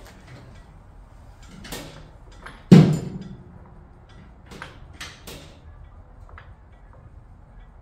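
A single loud clunk from the starter solenoid of a 1969 Plymouth Road Runner's 383 V8, with a few lighter clicks before and after it. The starter clicks but does not turn the engine over.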